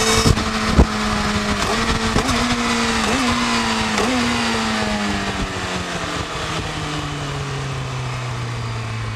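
Yamaha YZF-R6's inline-four engine on its stock exhaust, its note falling steadily as the bike slows toward idle. There are four short blips in pitch in the first half, and two sharp knocks right at the start.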